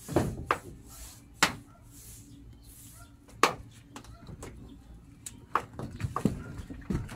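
Irregular sharp knocks and taps on corrugated galvanized iron roofing sheets as epoxy primer is brushed on and the paint can is handled, a few strokes spaced a second or more apart, then more frequent near the end.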